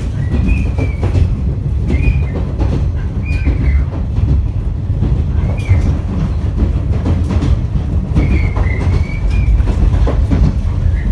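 Interior of a JNR KuHa 455 express-type electric train car coasting through a dead section with traction power cut, so no motor or air-conditioner sound is heard. What remains is the steady running rumble and the clicking of wheels over rail joints, with short high squeals now and then.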